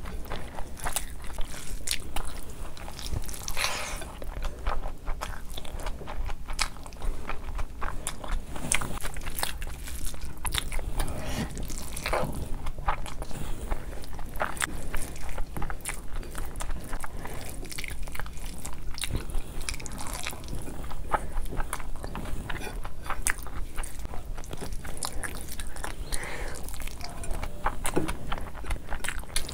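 Close-miked chewing and biting of a mouthful of biryani rice and chicken, eaten by hand, with many small, quick, wet clicks and smacks of the mouth.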